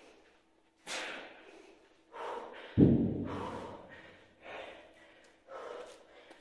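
Heavy iron kettlebells set down on a concrete floor with one loud thud about three seconds in, the low boom dying away over about a second. Around it come repeated hard, gasping breaths, about one a second, from a man out of breath after kettlebell swings.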